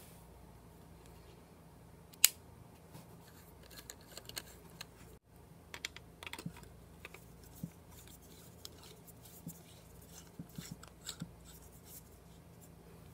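Small clicks and scrapes of a plastic-based compact fluorescent bulb being handled and screwed into a lamp socket, with one sharp click about two seconds in and clusters of lighter ticks after.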